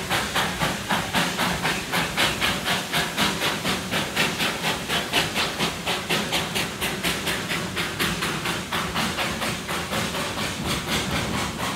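Darjeeling Himalayan Railway B-class narrow-gauge steam locomotive chuffing in a steady, even rhythm of about three exhaust beats a second. It is working hard to haul a heavy three-coach train up the grade.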